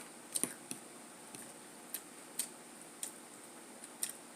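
Close-up mouth sounds of a person chewing food: a few irregular, sharp wet clicks and smacks over a faint background.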